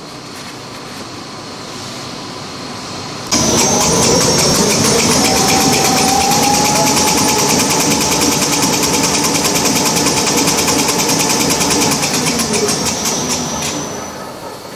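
Paper-towel rewinding machine, a low steady hum at first, then starting up abruptly about three seconds in and running with a fast, even clatter and a whine that rises a little in pitch. It slows and quietens near the end.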